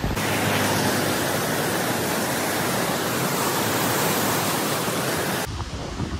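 Turbulent river whitewater rushing and churning, a steady loud hiss. About five and a half seconds in it cuts off abruptly, giving way to fainter wind on the microphone.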